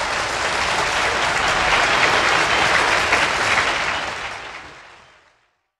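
Audience applauding a song, swelling slightly, then fading out about five seconds in.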